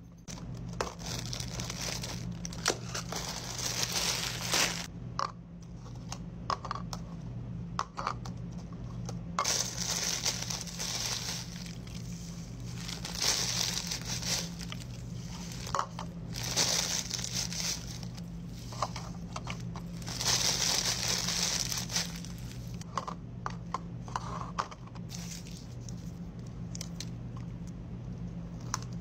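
Crinkling of clear plastic treat bags and paper-shred cup filler being handled, in repeated bursts of a second or two, with small clicks and taps between. A low steady hum runs underneath.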